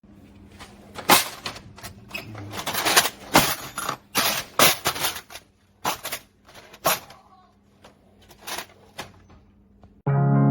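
Irregular clicks and clatter of flimsy plastic tool box organizer trays being handled, the pieces knocking together. Music starts just before the end.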